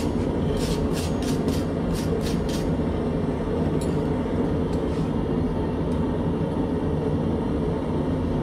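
Steel-bristle hand wire brush scrubbing forge scale off a hot-forged steel leaf on the anvil, about three scratchy strokes a second, stopping about two and a half seconds in. Under it, a steady low rushing noise from the running forge.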